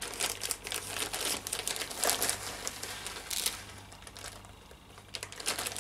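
Clear plastic bag of fishing micro pellets crinkling as it is handled, a dense run of crackles that thins out and goes quieter after about three and a half seconds.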